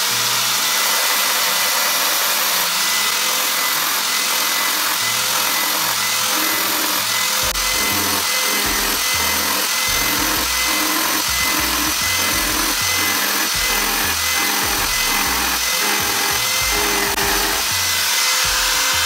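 Grinder with a diamond grinding disc running with a steady whine, grinding the teeth of a worn circular saw blade to sharpen them. Background music with a bass line plays underneath.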